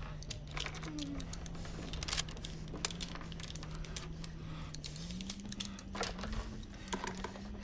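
Small sharp metallic clicks and rattles of a gun and its cartridges being handled and loaded, over a low steady drone that steps up in pitch about five seconds in.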